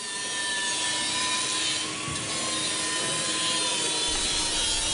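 Steady hiss of workshop machinery running, with a high, slightly wavering whine through it, fading in at the start.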